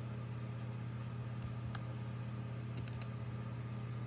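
A few faint clicks from operating the computer, a close pair of them near the end, over a steady low hum.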